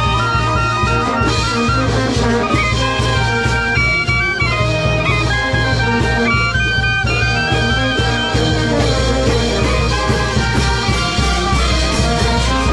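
Peruvian brass band playing a huayno: clarinets and saxophones carry the melody over sousaphones, a steady bass drum beat and crash cymbals.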